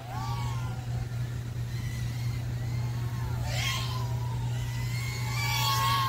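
Flywoo Nano Baby 1S micro FPV quadcopter's motors and propellers whining in flight, the pitch gliding up and down with throttle. The sound swells into a louder, hissier pass about three and a half seconds in and again near the end.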